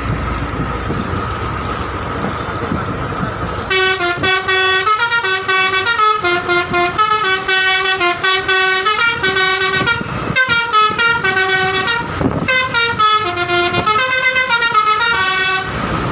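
Bus 'telolet' multi-tone air horn playing a fast melody of stepped notes, coming in about four seconds in over the bus's running noise. It breaks off briefly twice.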